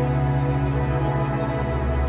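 Background music with deep, sustained low notes.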